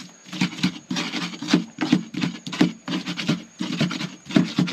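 Pestle grinding a raw spice paste (garlic, shallots, chillies, ginger) in a mortar with quick, even strokes, about three a second, working it toward a fine paste.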